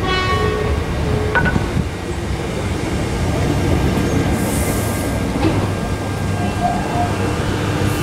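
X'Trapolis electric suburban train pulling into the platform and running past at slowing speed: a steady rumble of wheels on rail, with a few faint whining tones at first and a short hiss about four and a half seconds in.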